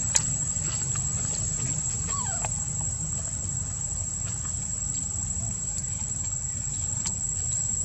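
Insects droning in one steady high-pitched whine over a steady low rumble. A sharp click sounds just after the start, a few fainter clicks come and go, and a short falling call is heard about two seconds in.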